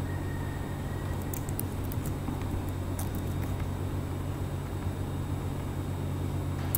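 Steady low electrical hum in the recording, with a few light clicks from a computer being operated: a cluster about a second and a half in, one about three seconds in and one near the end.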